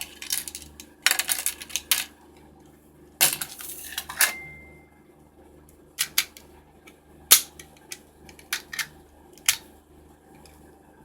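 Sharp plastic clicks and snaps from a toy Kamen Rider lock seed being handled and worked, with two noisy bursts about a second long, the second ending in a brief steady beep.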